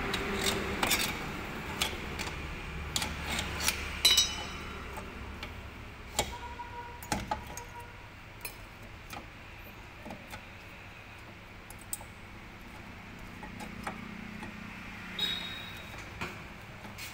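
Hand tools and steel return springs clinking against a Swift Dzire's rear drum brake assembly as the brake shoes are worked on: scattered light clicks and clinks, with a brief ringing metallic clink about four seconds in and another near the end.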